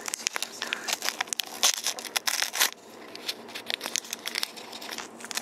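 Small paper packets being torn open and crinkled: a run of rustling, tearing crackles, busiest near the middle, with handling noise close to the microphone.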